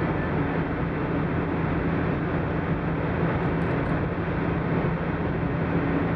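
Steady road noise inside a moving car: tyres running on wet asphalt over a low engine hum.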